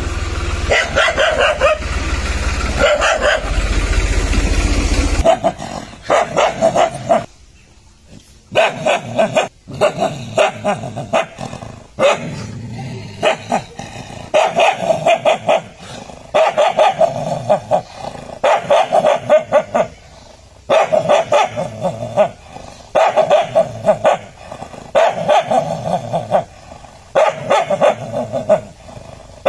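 Stray dogs barking at their own reflections in a mirror, in quick volleys about every second or two. A low steady hum sits under the first five seconds.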